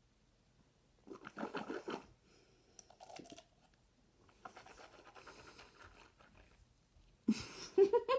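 Mouth noises from rinsing and spitting out water after brushing with charcoal tooth powder: a breathy spit about a second in, then softer blowing and breathing. Near the end comes a short, muffled laugh through a hand over the mouth, the loudest sound.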